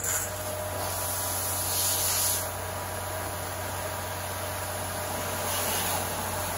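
Pressure washer running: a steady motor hum under the hiss of its water jet spraying. It starts suddenly and grows louder and hissier for about a second around two seconds in.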